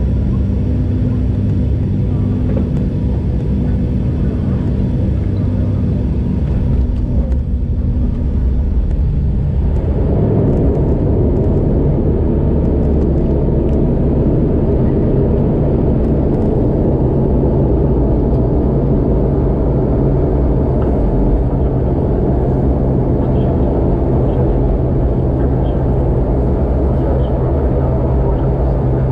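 Inside the cabin of an ATR 72 turboprop rolling down a wet runway on landing: steady drone of the engines and propellers over rumble from the runway. About ten seconds in, the sound turns louder and rougher and stays that way.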